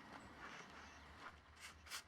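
Near silence: faint background ambience with two soft brief rustles or clicks near the end.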